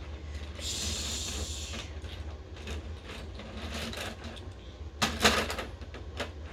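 Toy trains being pushed along a track and coupled together: rolling noise and small plastic clicks and knocks, with a louder clatter about five seconds in.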